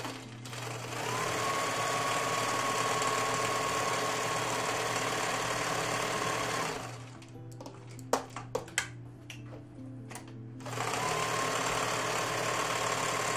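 Electric sewing machine stitching a seam with a steady motor whine: one run of about six seconds, a pause with a few sharp clicks, then stitching again for the last few seconds.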